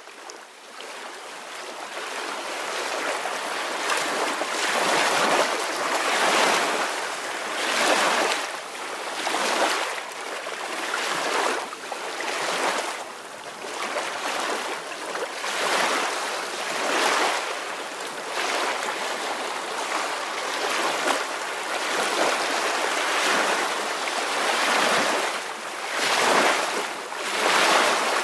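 Soft ocean waves washing on the shore, swelling and ebbing every second or two, fading in over the first few seconds.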